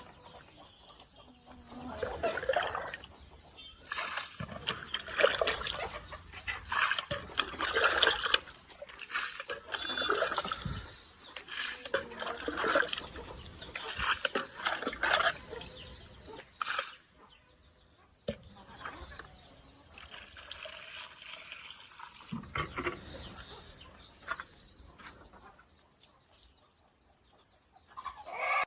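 Water splashing and pouring in irregular bursts, with chickens clucking.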